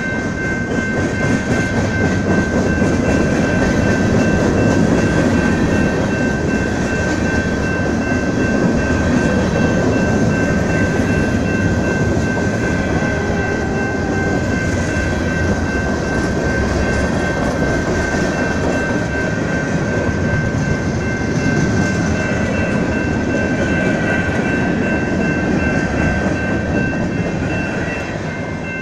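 Freight cars of a manifest train rolling past: a steady rumble and rattle of wheels on the rail, with a steady high ringing tone running through it.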